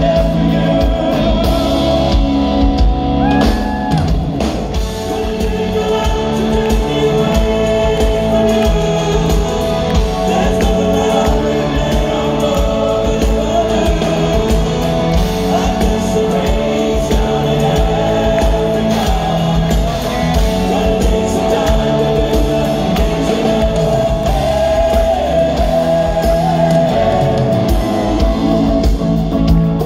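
Live rock band in concert: a male lead singer over grand piano, electric guitar and drums.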